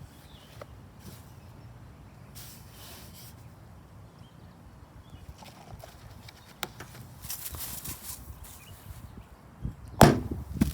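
Baking soda and vinegar reaction in a capped cup: scattered light knocks and faint hissing, then one sudden loud pop about ten seconds in as the pressure blows the cap off.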